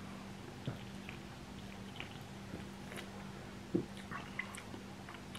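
Drinking from an aluminium energy-drink can: quiet swallows and small mouth and lip clicks, with a sharper click a little before four seconds in. A faint steady low hum runs underneath.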